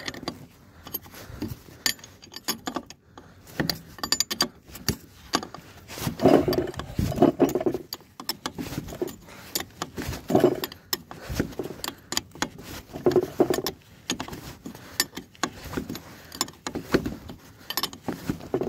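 Metal hand tools clicking and clinking at an irregular pace as nuts are turned by hand on a trailer brake assembly, with a few louder, busier stretches.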